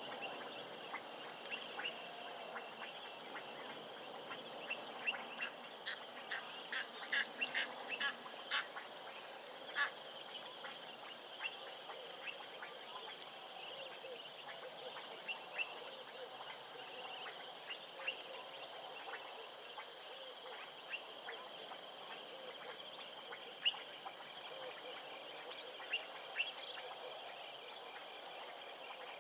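Wild animal chorus: insects keep up a steady, evenly pulsing high trill, and short clicking calls come in bursts, thickest from about six to ten seconds in, with one sharper click a little later.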